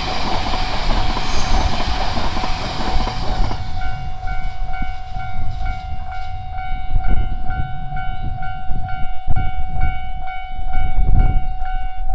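E3 series Shinkansen train rushing through a level crossing, its noise dying away about four seconds in, while the crossing's electronic warning bell keeps ringing in a fast, steady repeating pattern.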